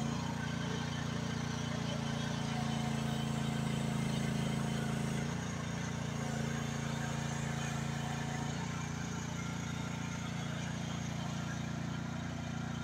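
H12 mini excavator's small engine running steadily as the machine digs with its arm; the engine note changes about five seconds in as the load shifts.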